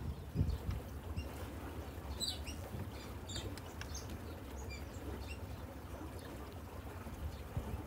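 Birds calling with short, scattered high chirps over a steady low rumble.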